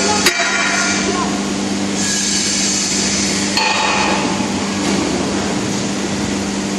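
Foundry workshop noise: a steady machine hum with metal clanks, one sharp clank just after the start and another about three and a half seconds in.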